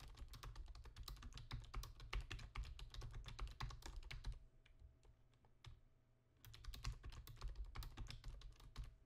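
Faint typing on a computer keyboard: a run of quick keystrokes for about four seconds, a pause of about two seconds, then another run of keystrokes.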